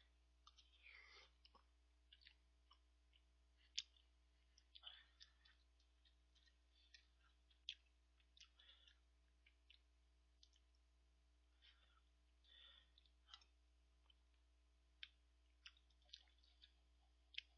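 Close-miked eating sounds of a man spooning up instant cup ramen: irregular wet mouth clicks, lip smacks and chewing, with short slurps, a few of them sharply louder than the rest.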